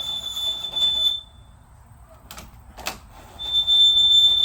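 A high, steady squeal heard twice, each lasting a second or more, with two sharp knocks between them.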